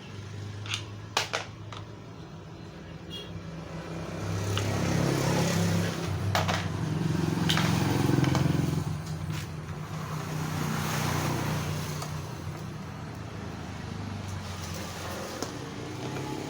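A motor-vehicle engine hums nearby, swelling louder and fading twice. A few sharp clicks come about a second in and once more midway, likely from small carburetor parts being handled.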